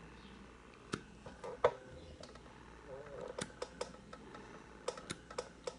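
Irregular small clicks and pops, about a dozen, from a handheld vacuum comedone suction device as its tip seals onto and lifts off the skin. The loudest comes about a second and a half in.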